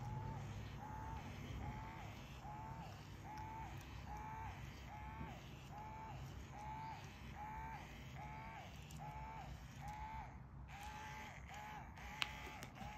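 Small battery-powered interactive cat toy with a feather wand and laser giving a steady run of identical short squeaky calls, about two a second, with a brief pause near three-quarters through and a sharp click near the end.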